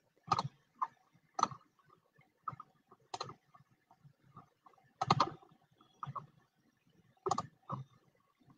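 Irregular light clicks and taps, about ten of them spread a fraction of a second to a second apart, with silence between.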